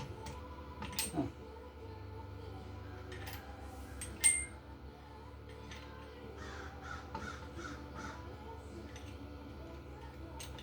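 A few sharp metallic clinks and knocks from hand tools and engine parts. The loudest comes about four seconds in with a brief high ring, over a steady low hum.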